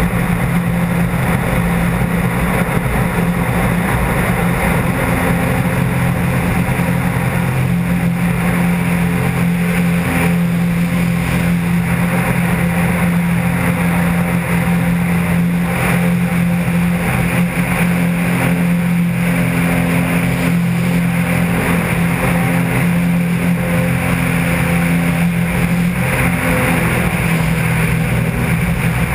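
Maule M4 floatplane's piston engine and two-blade propeller running at high power through takeoff and climb: a loud, steady drone with a strong low hum, over a rush of wind and airflow noise from under the wing.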